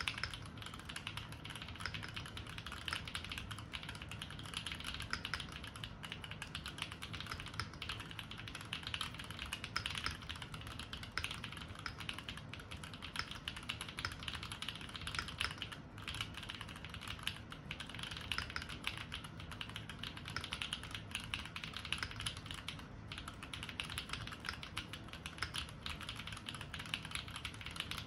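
Modded Keychron Q5 mechanical keyboard being typed on fast and without pause, a dense run of keystrokes several a second.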